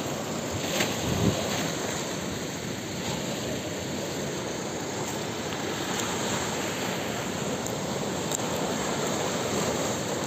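Rough sea surf and muddy floodwater washing steadily over the shallows in a storm, with wind. A couple of short bumps about a second in.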